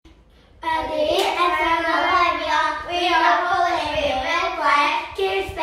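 Young girls singing a short opening song together, starting about half a second in, with long held notes.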